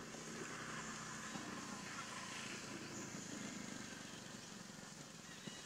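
Faint motor-vehicle engine hum, a steady low drone that fades out about a second and a half in, over light outdoor background noise. A thin, steady high tone joins about three seconds in.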